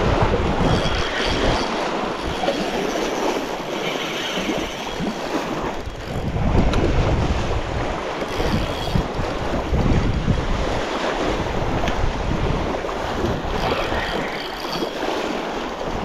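Strong wind buffeting the microphone over small waves lapping at a lake's edge, gusting harder about six seconds in.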